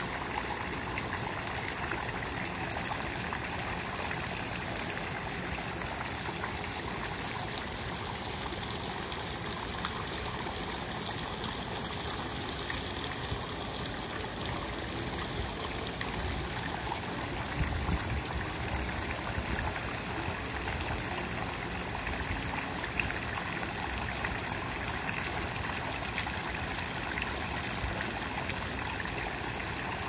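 Tiered fountain running steadily: water spilling from its upper basins and splashing into the pool below, an even, unbroken patter.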